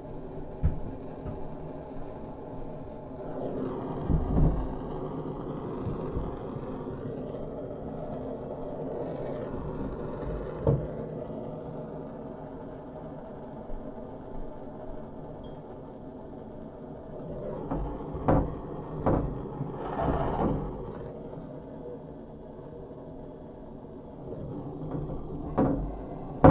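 Handheld gas torch on a yellow fuel cylinder burning with a steady roar while its flame heats a copper pipe joint behind the shower wall. A few sharp knocks and clatters come about two-thirds of the way through and again near the end.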